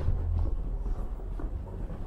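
Footsteps walking along a hallway floor, about two steps a second, over a low steady hum.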